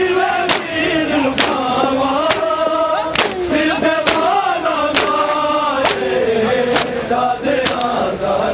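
Men's voices chanting a noha together, with a sharp slap of bare-hand chest-beating (matam) in time about once a second.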